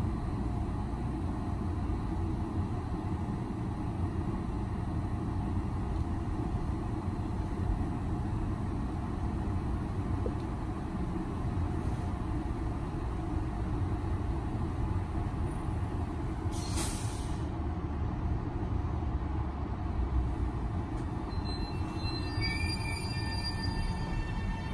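Metro-North M7A electric multiple-unit train standing at a platform with a steady low rumble and hum, and a short burst of air hiss about two-thirds of the way through. Near the end, whining tones from the traction motors come in and begin to rise in pitch as the train starts to pull away.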